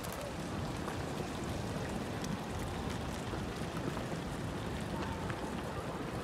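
Storm-force wind rumbling steadily across the microphone, with faint scattered ticks over it.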